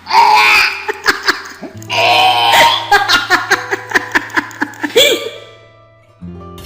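A person laughing hard in quick repeated bursts that die away about five seconds in.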